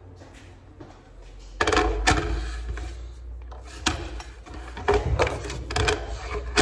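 Kitchen clatter: sharp knocks and clinks of things being handled and set down on the counter, the loudest cluster about a second and a half in, then single knocks every second or so. A low steady hum runs underneath from about a second and a half in.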